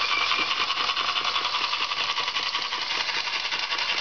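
Small 1975 Bio Fiz model steam engine running steadily on steam, a fast, even beat of exhaust puffs and clattering valve gear.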